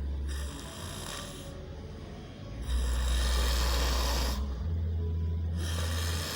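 Baby snoring in sleep: three rasping breaths about three seconds apart, the middle one loudest. The uploader puts the snoring down to a wrong side-lying sleeping position.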